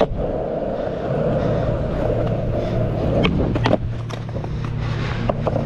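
Skateboard wheels rolling on asphalt, then sharp wooden clacks a little over three seconds in as the board's tail pops for a flip trick and the board strikes the pavement, with a few more clacks near the end.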